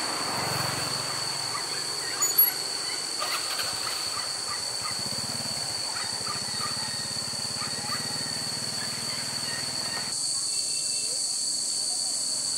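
Poultry calling in short chirps over a steady high-pitched drone.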